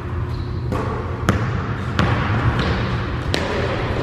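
Basketball dribbled on a hardwood gym floor: about six sharp bounces at uneven spacing, over a steady low hum.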